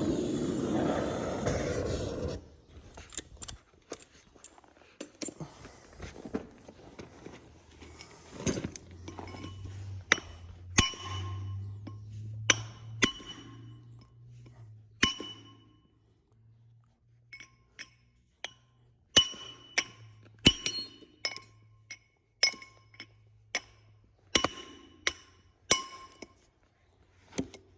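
Steel hammer blows ringing off a stuck final-drive bearing as it is driven along the drive shaft: a long string of sharp, irregularly spaced strikes with a bright metallic ring. Before them a loud steady rushing noise stops suddenly about two seconds in.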